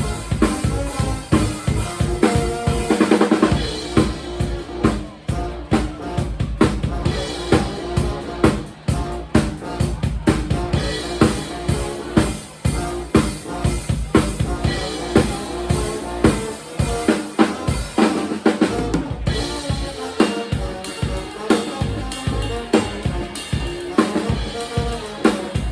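Live band playing an instrumental passage with the drum kit out front: a steady bass drum and snare beat under sustained pitched notes from the other instruments.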